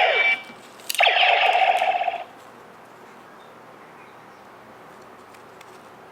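DX Neo Decade Driver toy belt playing its electronic sound effects through its small speaker: a falling sound ending just after the start, then about a second in a click and a loud, steady buzzing tone lasting about a second.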